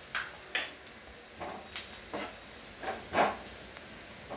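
Wooden spatula stirring chilli powder into frying onions in a non-stick frying pan: irregular scrapes and knocks against the pan. A sharper, ringing clink about half a second in is the loudest.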